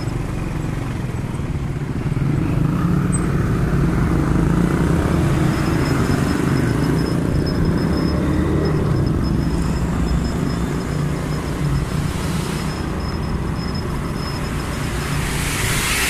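Motorcycle engine running under the rider in street traffic, louder from about two seconds in as the bike pulls away and rides on, with a steady low rumble of engine and road noise.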